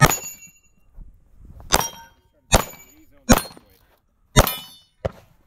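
Six gunshots from a pistol in a Flux brace chassis, fired at an uneven pace about a second apart. Each shot is followed by a short metallic ring, and the last is quieter.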